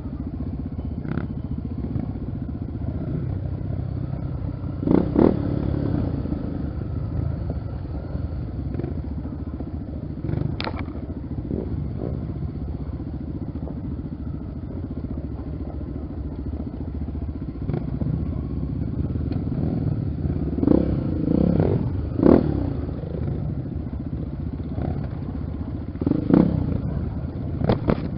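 Honda XR 250 Tornado trail motorcycle's single-cylinder four-stroke engine running steadily, with a few sharp knocks and clatters scattered through.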